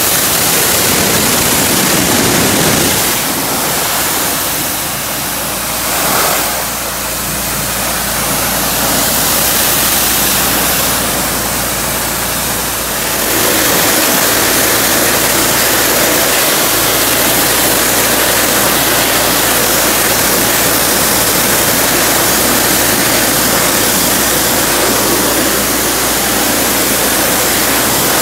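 High-pressure water jet from a Simpson 3200 psi gas pressure washer hissing steadily against a painted wooden railing, with the engine running underneath. The spray sound eases briefly a few seconds in and again around the middle as the wand moves.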